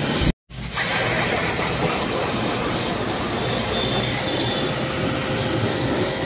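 High-pressure washer running with its water jet spraying: a steady hiss over a low motor hum. It breaks off in a brief dropout about half a second in, then carries on at the same level.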